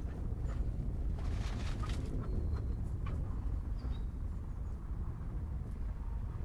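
Two dogs romping on grass, their paws giving scattered soft thumps and rustles over a steady low rumble.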